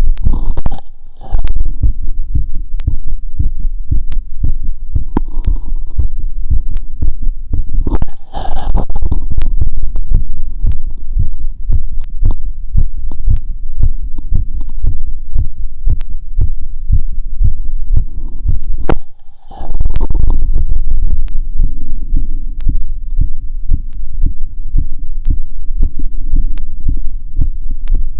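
Heartbeat heard through a stethoscope after a 2 km run, with loud, dense low thumping. It is broken three times by short rubbing noises as the chest piece is shifted on the skin: about a second in, about eight seconds in, and near twenty seconds in.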